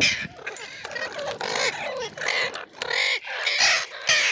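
Ringneck parrot giving a series of short, loud calls in quick succession.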